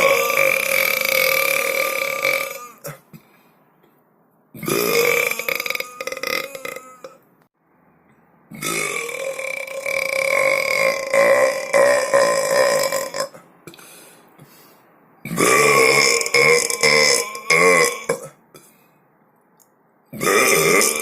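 A person belching loudly: a series of long, drawn-out burps, each lasting about two to five seconds, with short quiet pauses between. The longest comes in the middle, and another begins just at the end.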